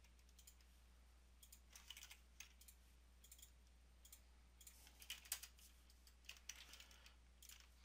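Faint, irregular clicks of a computer mouse and keyboard keys, a dozen or so in small clusters, while a value is chosen from a dropdown and a part quantity is typed in CAD software.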